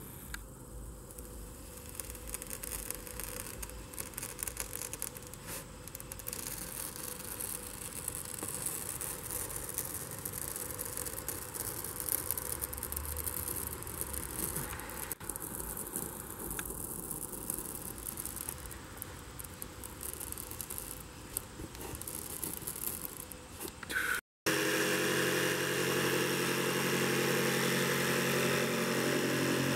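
A knife heated in a fire slicing slowly through foil-faced rigid foam insulation board, quiet and even. After a sudden break about 24 seconds in, a battery jigsaw with a fine-toothed metal blade runs steadily and louder as it saws through the board.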